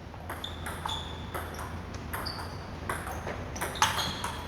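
Table tennis rally: a plastic ball clicking off paddles and the table several times a second, each hit with a short, high ring.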